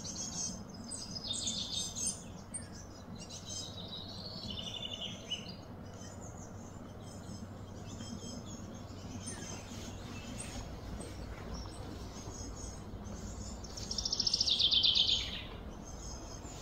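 Songbirds chirping and calling around an outdoor gorilla enclosure, over a steady low hum. Near the end a louder, rapid high trill stands out for about a second and a half.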